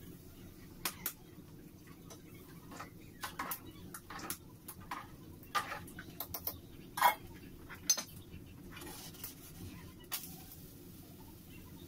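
Metal kitchen utensils and a pot lid clinking and knocking against an aluminium cooking pot and a frying pan: scattered light clinks, the loudest about seven seconds in, over a steady low hum.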